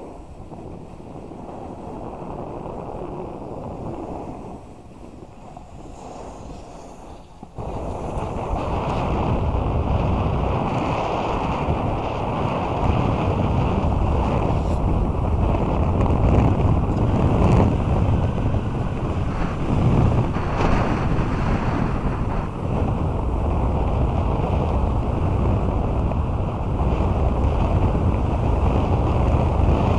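Wind rushing over an action camera's microphone while snowboarding downhill, mixed with the board sliding over packed snow. The rushing jumps louder about seven and a half seconds in and swells and dips after that.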